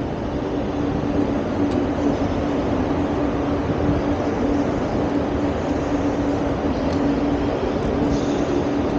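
Inline skate wheels rolling steadily over smooth ground: a continuous rolling noise with a steady hum under it.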